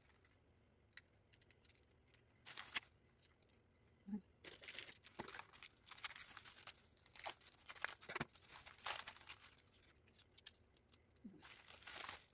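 Quiet, intermittent crinkling and rustling from graham crackers being handled and laid into a tray, busiest from about four to nine seconds in, with a few small clicks before that.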